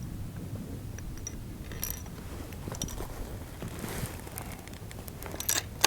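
Small mechanical clicks and rattles from handling a target rifle and its gear, sparse at first, with a few sharper, louder clicks near the end.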